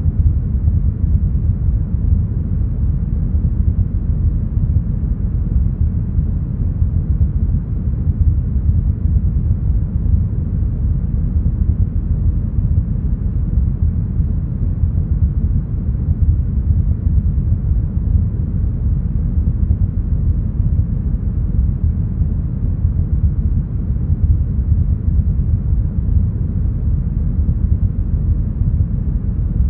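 Deep, smoothed brown noise: a steady, even noise heaviest in the bass, with no high hiss.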